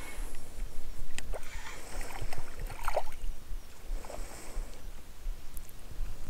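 Hooked white bream splashing at the water's surface a few times as it is reeled in to the bank, the loudest splash about three seconds in.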